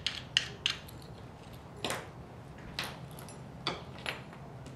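Light metallic clicks from small brass lamp-socket parts being handled and taken apart: a quick run of ticks in the first second, then four single clicks spaced out.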